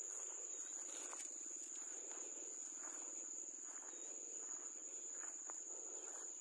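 Insects trilling in one steady, unbroken high-pitched tone, with soft footsteps on the grassy path between rice paddies.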